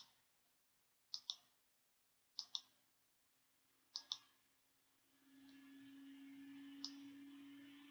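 Three computer mouse clicks, each a quick press-and-release pair, spread over the first four seconds as the zoom button is clicked. A faint steady hum comes in about five seconds in.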